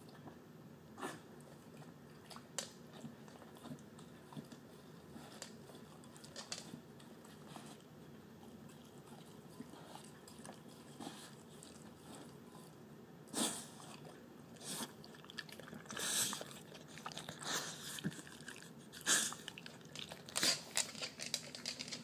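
A terrier mix licking and chewing the last scraps of wet dog food from a nearly empty glass dish, with short wet mouth clicks and smacks. They come only now and then at first and grow more frequent and louder from a little past halfway.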